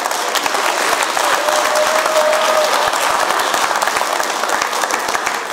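Live audience applauding, a dense, steady clapping, with one voice briefly audible over it about two seconds in.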